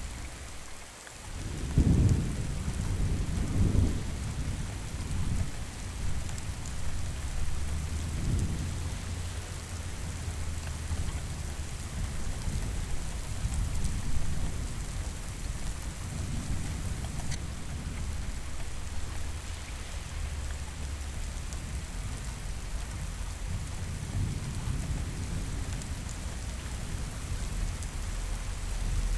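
Steady heavy rain with rolling thunder: a loud thunderclap about two seconds in, followed by further rumbles around four and eight seconds, then the rain continues with low rumbling beneath it.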